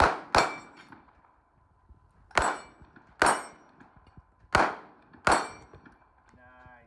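Gunshots at a shooting range: six sharp shots at irregular intervals, each with a ringing, echoing tail.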